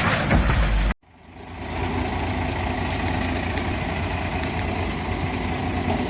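A loud noisy stretch cuts off abruptly about a second in; after a brief silence a vehicle engine fades in and runs steadily with an even low rumble.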